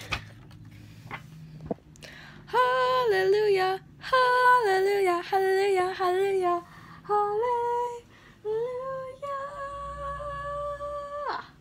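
A woman singing a short tune without clear words, in several phrases with stepping notes, ending on one long held note.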